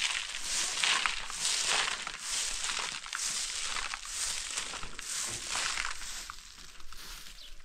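Short-handled straw hand broom sweeping bare, gravelly dirt ground: a run of rough swishes, a little more than one a second, growing fainter near the end.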